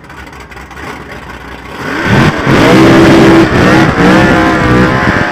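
Farmtruck, a modified late-1960s Chevrolet C10 pickup, doing a burnout on the drag strip: the engine rumbles at first, then revs up hard about two seconds in and holds high and loud while the rear tyres spin in smoke.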